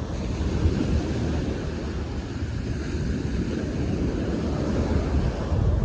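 Wind buffeting the microphone over the steady wash of ocean surf, a low rumble under an even hiss.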